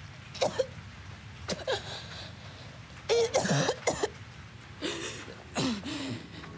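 A teenage girl coughing, gasping and choking in short, harsh bursts about a second apart, in distress as she is seized by a werewolf transformation.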